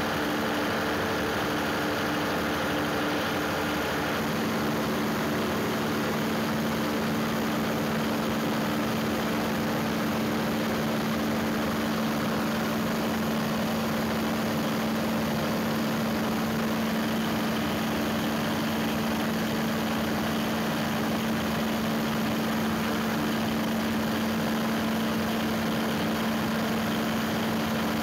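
Large 1-megawatt engine running steadily under test, a constant low hum with a steady tone that grows stronger about four seconds in.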